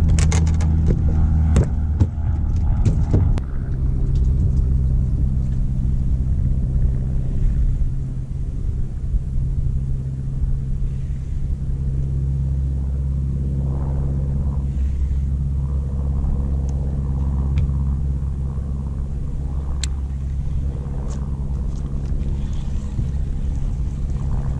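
Boat motor running steadily with a low, even hum that changes pitch slightly a few seconds in. A few sharp knocks and rattles come in the first few seconds.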